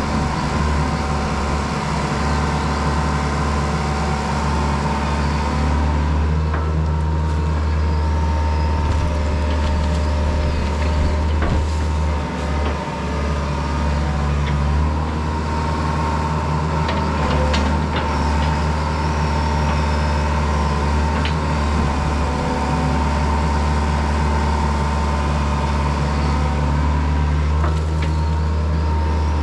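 Diesel engine of a piece of heavy construction equipment running steadily under work, a deep even drone with a few scattered knocks and clanks from the machine as it works the fill.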